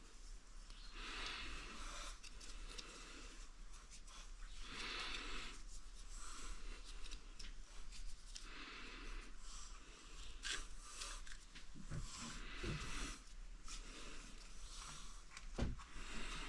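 Close rustling and rubbing in uneven bursts, like cloth and gear being handled against the microphone, with a few dull knocks near the end.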